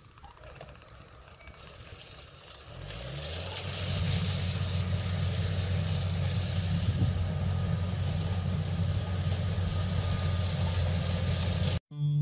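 Farm machine engine rising in pitch about three seconds in, then running steadily at a low, even pitch until it stops abruptly near the end.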